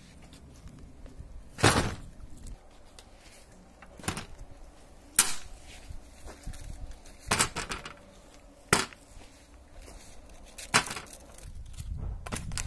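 A handful of separate sharp knocks and clunks, spaced a second or more apart, as tools are set down on a slatted wooden table: a rusty crosscut saw, an electric drill and a sander.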